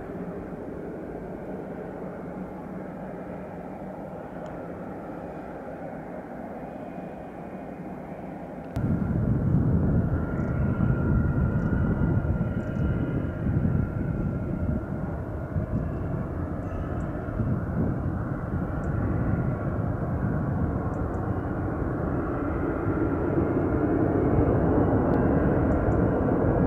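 McDonnell Douglas MD-82 jet's rear-mounted Pratt & Whitney JT8D turbofans running at low power, a steady jet hum. About nine seconds in the sound jumps abruptly to a much louder low rumble with a faint steady whine, growing gradually louder toward the end as the jet waits on the runway.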